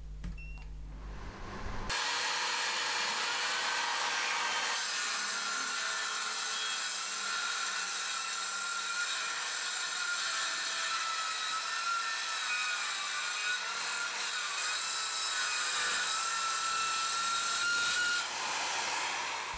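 Bosch track saw cutting a sheet of 18 mm MDF along its guide rail: a steady sawing noise with a motor whine that wavers under load. It starts abruptly about two seconds in and drops away near the end.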